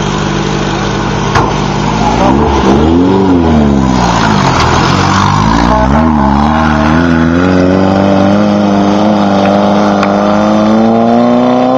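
Class 11 stock Volkswagen Beetle race car's air-cooled flat-four engine. It idles, is revved up and down twice, then its pitch climbs steadily for several seconds under acceleration.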